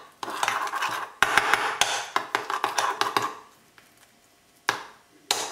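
Metal spoon scraping and clinking against a ceramic bowl while mashing soft garlic-and-herb cheese into fromage blanc, stopping a little past three seconds in. Two sharp knocks follow near the end.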